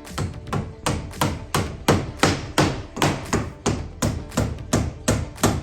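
Hammer striking timber in steady, evenly spaced blows, about three a second.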